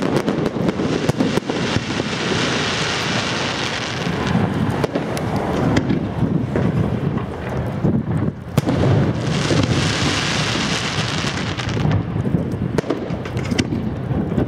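Fireworks display: a rapid run of shell bursts and bangs over a continuous rumble, with two stretches of hissing about two seconds and ten seconds in.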